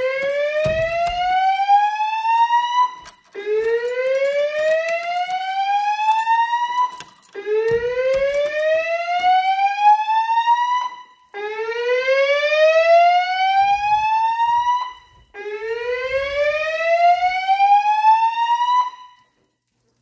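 Fire alarm speakers of a Notifier NFS2-3030 voice evacuation system sounding the slow whoop evacuation tone. It is a loud, rising sweep about three and a half seconds long, repeating about every four seconds, five times, between spoken evacuation messages.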